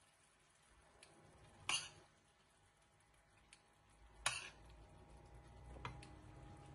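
Metal spoon scraping and knocking in a nonstick frying pan as tomato sauce is spread: two short scrapes about two and a half seconds apart, with a few faint clicks between.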